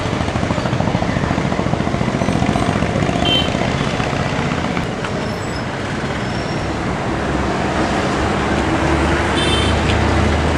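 Steady road traffic noise with engines running. A deeper engine hum grows over the last few seconds, and brief high horn toots sound about three seconds in and again near the end.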